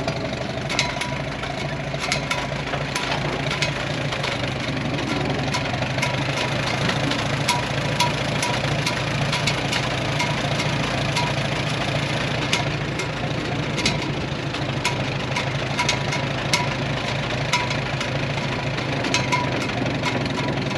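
Farmall M tractor's four-cylinder engine running at a low, steady speed, with sharp clicks every second or so.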